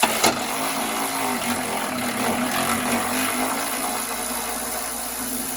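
Harbor Freight Earthquake XT impact wrench running flat out on a crossmember bolt, with a sharp knock about a quarter second in as it is thrown onto the bolt. The wrench is struggling to break the bolt loose.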